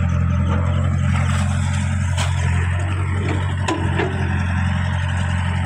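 Caterpillar E70B crawler excavator's diesel engine running steadily while the bucket works wet mud, with a few sharp knocks about two and about four seconds in.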